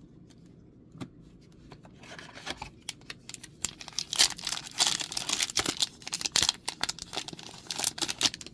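A Mystery Booster 2 booster pack wrapper being torn open and crinkled by hand: a single click about a second in, then a rapid run of crackling tears and rustles from about two seconds in.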